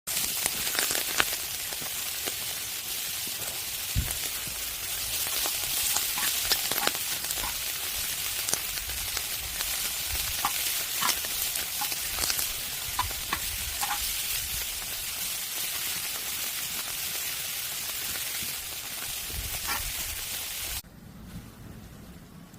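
Thick slab of pork belly sizzling and spitting in hot fat on a cast-iron cauldron lid, a steady hiss dotted with sharp pops; it drops away abruptly near the end.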